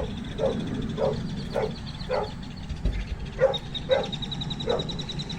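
An animal giving short, repeated calls, about eight of them at roughly two a second, with a brief pause in the middle.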